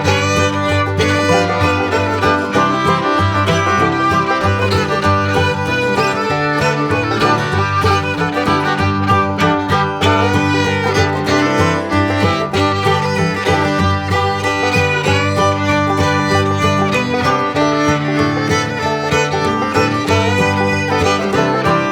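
Background music: an upbeat string-band tune with fiddle over a steady beat.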